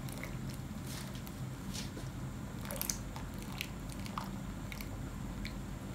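Boiled basmati rice being lifted from its cooking water in a wire spider strainer: water trickling and dripping back into the pot, with scattered small wet clicks and crackles.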